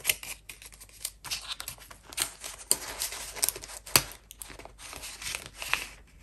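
Hands handling polymer banknotes and the plastic pockets of a ring-binder cash wallet: irregular rustling and crinkling with a few sharp clicks, the strongest about four seconds in.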